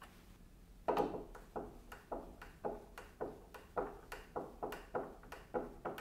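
Hand screwdriver turning a screw through a vacuum docking-station backplate into the wall: a run of short clicks, about two or three a second, starting about a second in.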